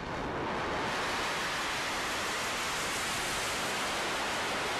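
Falcon 9 first-stage Merlin engine firing its landing burn during the final descent to the pad: a steady, even rushing noise that swells right at the start and holds.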